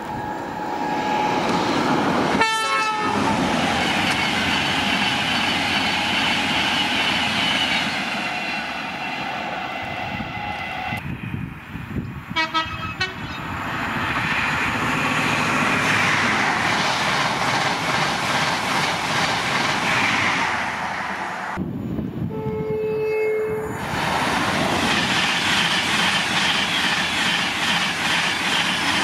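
High-speed passenger trains passing at speed: a long rush of wheel and air noise from an InterCity 125 set and a Class 91-hauled electric set, in several back-to-back passes that break off abruptly about 2.5, 11 and 21 seconds in. A brief steady tone sounds about 22 seconds in.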